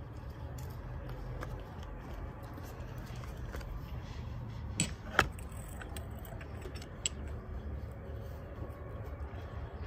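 Small objects being handled on a table: two sharp clicks about five seconds in and a lighter one about two seconds later, over a steady low rumble.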